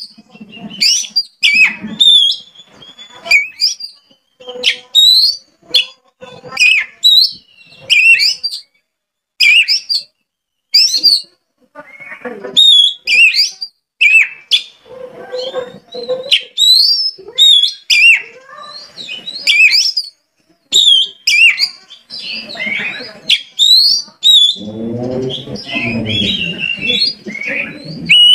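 Oriental magpie-robin (kacer) singing: sharp whistled notes that sweep up and down, repeated about once a second, with a lower, buzzier passage near the end.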